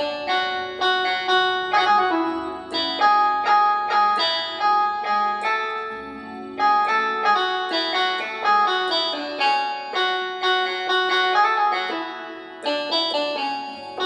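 Roland XPS-10 keyboard playing a melody in a piano-like, plucked tone. Notes come several a second, each starting sharply and dying away, with short breaks about six and twelve seconds in.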